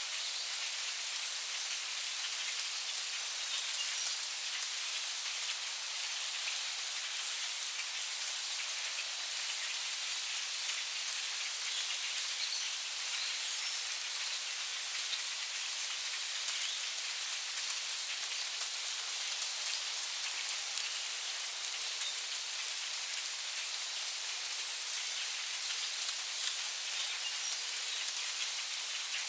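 Steady rain falling on forest leaves: an even hiss made of many individual drops, with no letup.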